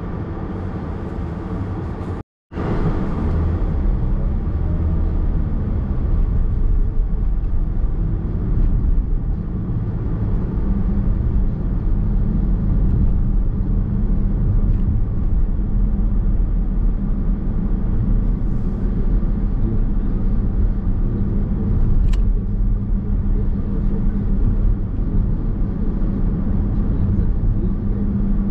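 Nissan X-Trail Hybrid on the move, heard from inside the cabin: a steady low rumble of tyres and road noise. About two seconds in the sound cuts out completely for a moment.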